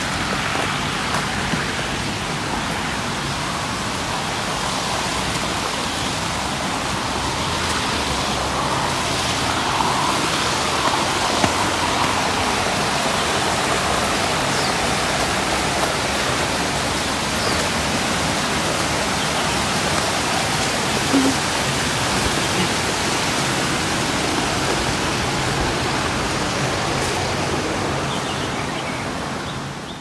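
Waterfall water rushing: a steady, even hiss that swells a little in the middle and fades near the end.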